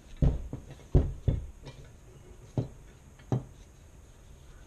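Metal parts knocking and clinking as a mounting plate and its bolts are handled against a motorcycle side rack: about five separate knocks, the loudest two in the first second or so.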